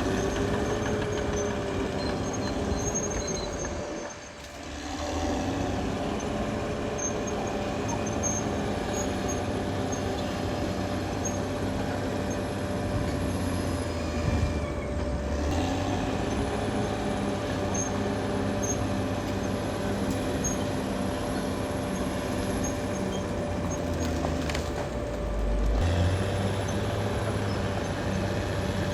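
Caterpillar D6R XL bulldozer's diesel engine working, its pitch rising and falling with the load, over a steady whine. It dips briefly about four seconds in.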